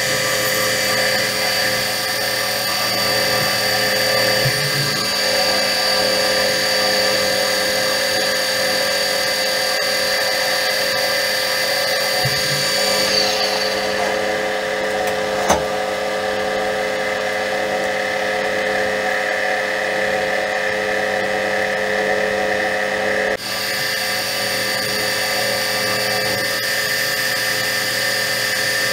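Metal lathe running, its cutting tool turning a metal shaft and peeling off a long stringy chip: a steady machine whine with a high ringing tone from the cut. About halfway the high tone slides down and fades, a single sharp click follows, and the high tone comes back abruptly about 23 seconds in.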